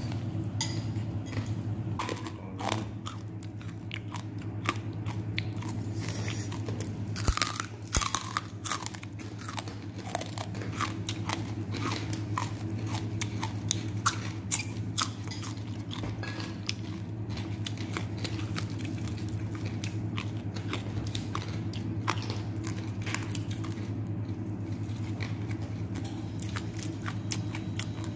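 Someone biting and chewing crunchy food: a run of irregular crisp crunches, thickest in the first half, over a steady low hum.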